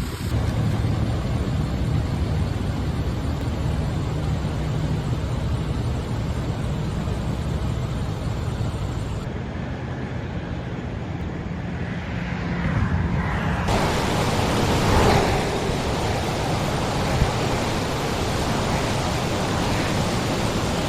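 A steady roar of rushing water and wind noise, changing abruptly about 9 and 14 seconds in where clips are cut together.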